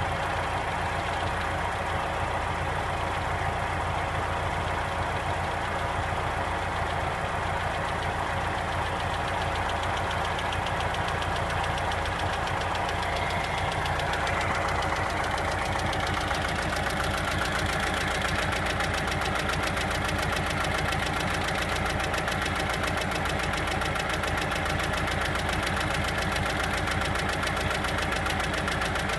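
Volkswagen Passat B5's 1.6-litre ALZ petrol four-cylinder idling steadily, with a fast, even knocking from inside the engine: the knock the owner is showing as a fault.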